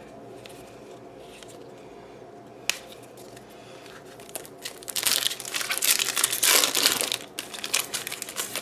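A foil Yu-Gi-Oh! Battles of Legend: Armageddon booster pack being torn open: quiet handling with one sharp click at first, then a loud stretch of crinkling foil about five seconds in, trailing off into smaller crackles as the wrapper is handled.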